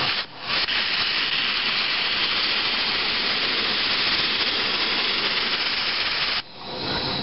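Portable sandblaster blasting paint and rust off a stripped wheel: a steady hiss of compressed air and abrasive that starts about half a second in. It cuts off suddenly near the end, then resumes quieter.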